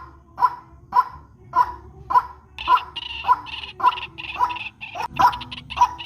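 White-breasted waterhen (ruak-ruak) calling: a harsh, croaking note repeated steadily, a little under twice a second. About two and a half seconds in, a higher, rapid chattering joins for about three seconds.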